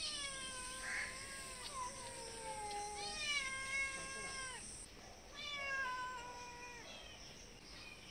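A short-haired grey-and-white cat meowing for food: three long, drawn-out meows that each fall in pitch, then a short one near the end.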